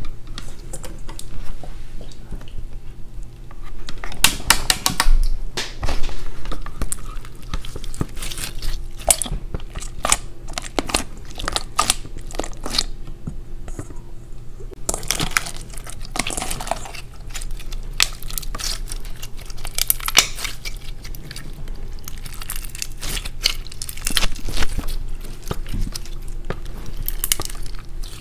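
Clear slime filled with coloured beads being squeezed, stretched and pressed by hand in a stainless steel bowl: wet, sticky crackling and clicking that swells into louder bursts several times as the slime is worked.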